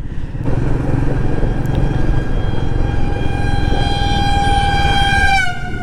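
A long, steady horn blast from a passing vehicle that drops in pitch near the end as it goes by, over the low running of the motorcycle engine and road noise.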